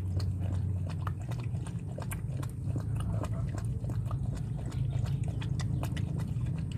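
A mother dog licking and chewing at a wet birth sac: a run of small wet clicking and smacking mouth sounds, over a steady low hum.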